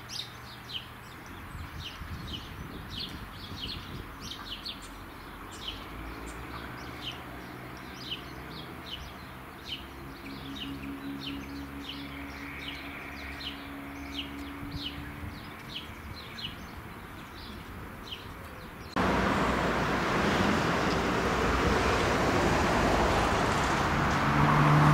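Small birds chirping in a steady run of short high notes over the faint low hum of a diesel multiple-unit train pulling away. About 19 s in, this cuts abruptly to the loud, even rush of a river running over shallows.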